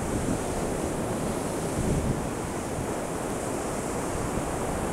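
Strong offshore wind buffeting the microphone as a steady low rumble, over the continuous wash of ocean surf breaking on the beach.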